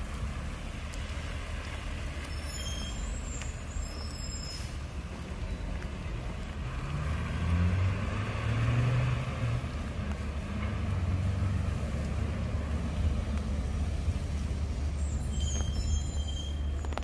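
A motor vehicle's engine running on a wet road, over a steady low rumble, swelling through the middle and then easing. Short high chirps come twice.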